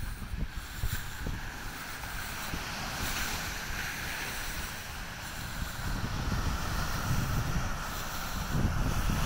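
Ocean surf breaking and washing up a sand beach, with wind buffeting the microphone. The wash grows louder in the second half.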